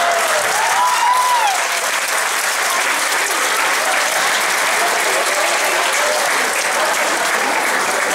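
Audience applauding steadily, with a voice cheering briefly about a second in.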